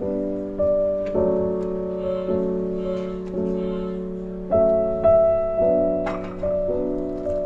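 Background piano music: slow held chords, a new chord struck about every second and fading before the next.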